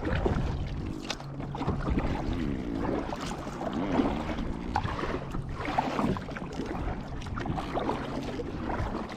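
Water lapping and sloshing against a kayak's hull, in small irregular splashes.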